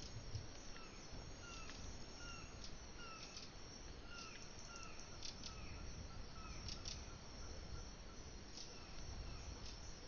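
Forest ambience: a steady high-pitched chirring of insects, with a bird repeating a short, slightly falling call about three times every two seconds until about three-quarters of the way through. Brief high chirps are scattered throughout.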